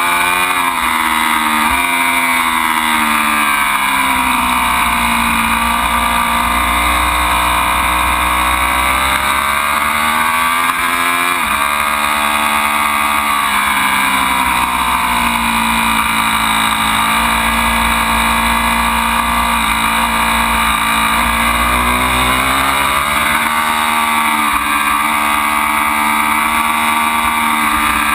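Ducati Panigale V4's V4 engine at racing pace, its revs climbing in long sweeps through the gears and falling away on braking, with several sharp drops on downshifts.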